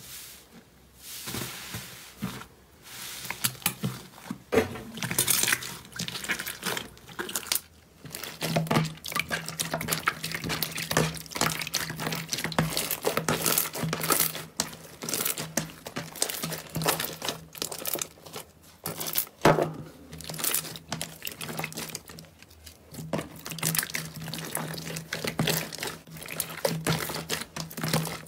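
Slime squeezed and stretched by hand: dense, irregular runs of wet, sticky crackles and pops. A low steady hum sits underneath from about a third of the way in.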